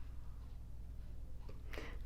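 Quiet room tone with a faint steady low hum; no distinct event.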